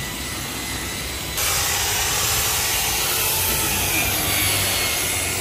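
Electric rotary polisher running with its buffing pad pressed against car paint: a steady whirring hiss that abruptly gets louder and brighter about a second and a half in.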